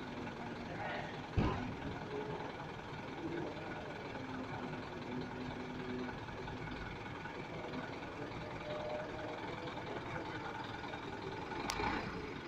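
Steady outdoor background din with faint distant voices, broken by a sharp knock about a second and a half in and a short click near the end.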